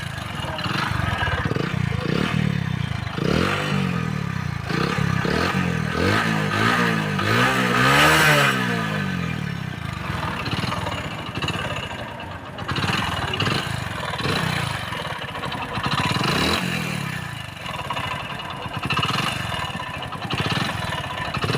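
Hero HF Deluxe's 97 cc single-cylinder four-stroke engine running with a loud clatter, revved up and back down several times, highest about eight seconds in. The mechanic later traced the noise to completely worn crankshaft bearings, with slight play in a camshaft bearing.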